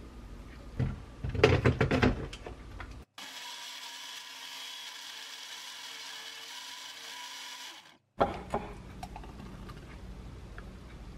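Crackling and rustling of the paper wrapping a sandwich as it is handled, then a countertop blender running steadily for about five seconds, grinding apple and kale into a smoothie, cutting off abruptly. A few sharp clicks follow as the smoothie is poured into a glass.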